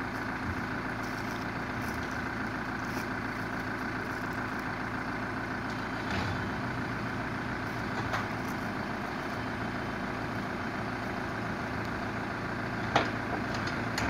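Komatsu WB93R backhoe loader's diesel engine idling steadily, with a few light ticks and one sharp knock near the end.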